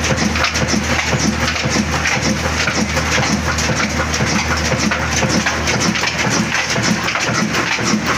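A 26 hp old stationary diesel engine with large flywheels running steadily: a rhythmic mechanical clatter over a constant low hum.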